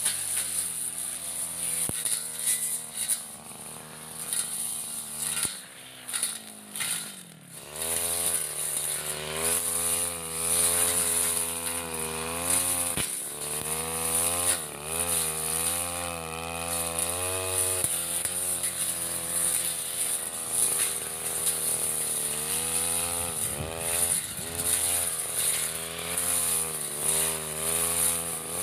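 Backpack brush cutter engine running at high speed as it cuts thick grass, its pitch wavering up and down under the changing load, with deep drops in revs about six to seven seconds in and again near twenty-four seconds before it picks back up.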